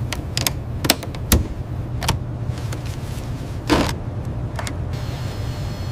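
A steady low mechanical hum, with sharp clicks and taps scattered through it and a short hiss a little before the four-second mark.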